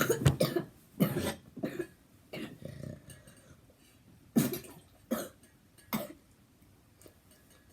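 A girl coughing: a run of coughs in the first two seconds, then three single coughs about a second apart. It is the sign of the little cough she has.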